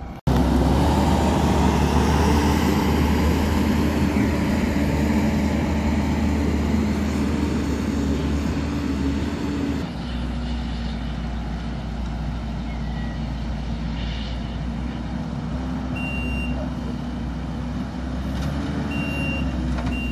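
Kubota compact track loader's diesel engine running steadily close by, over the rushing noise of natural gas burning from a ruptured 6-inch line. Near the end, the loader's reversing alarm beeps in short runs.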